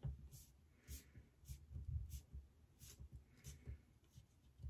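Faint handling sounds of a tube of hair-colour cream being squeezed into a plastic applicator bottle: soft, irregular low thuds with a few short ticks.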